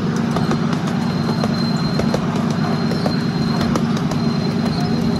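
Small engine of a ride-on miniature railway locomotive running steadily as the train rolls along, with the wheels clicking over the rail joints.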